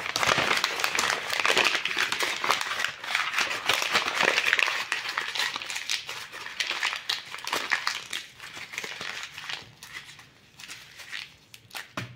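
A sheet of drawing paper being crumpled into a ball by hand, a dense run of crinkling and crackling that thins out to a few last crackles near the end.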